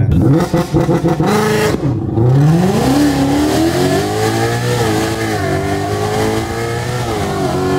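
High-performance car engine heard from inside the cabin on a launch-control start: revving in short bursts, then after a brief drop a hard full-throttle pull with the pitch climbing steadily, dipping at upshifts about halfway through and near the end.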